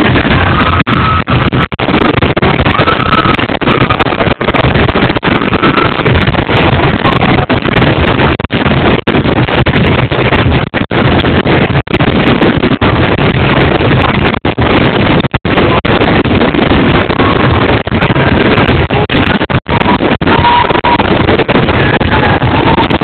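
Loud, continuous crackling and banging of a fireworks barrage, a dense unbroken din with brief dips and a few faint whistling tones over it.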